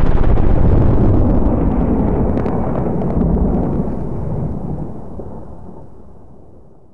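Deep cinematic boom under a title card: the long rumbling tail of a heavy impact hit, loud at first and fading steadily away over several seconds until it dies out near the end.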